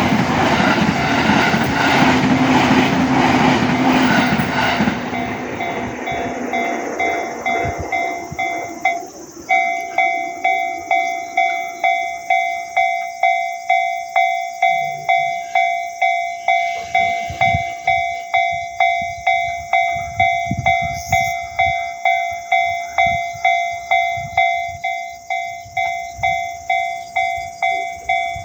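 A train runs over the level crossing with rail clatter for the first few seconds, then fades away. Under it the crossing's electronic warning bell rings. It is a repeating metallic ding, just under two strikes a second, and is plainly heard on its own from about nine seconds in.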